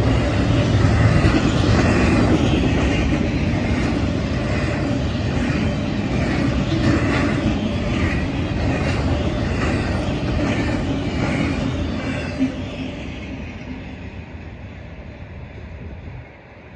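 Norfolk Southern intermodal freight train rolling past, its wheels rumbling and clacking over the rails. The sound fades away as the last cars go by near the end.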